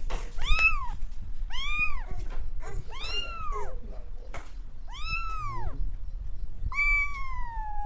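Domestic cat meowing five times, each meow rising then falling in pitch; the last one is long and drawn out.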